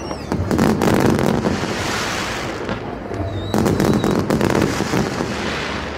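Aerial fireworks bursting overhead: a dense run of crackling pops with sharper bangs, which thicken just after the start and again about three and a half seconds in.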